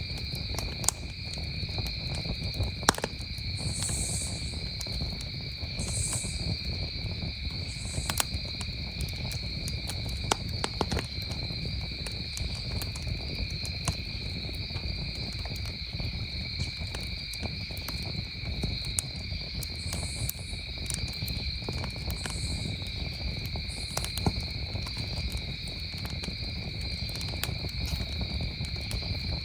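Wood campfire crackling, with scattered sharp pops, over a steady chorus of crickets trilling. A higher call repeats every couple of seconds in two short runs.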